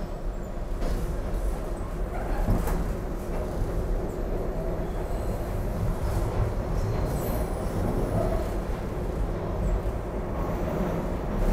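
Broad Street Line subway car running at speed through a tunnel, heard from inside the car: a steady rumble of wheels on the rails with a few faint clacks.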